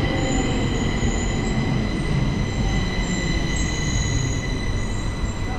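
Stockholm metro train pulling out along the platform: a steady rumble of wheels on rails with several steady high-pitched tones ringing over it.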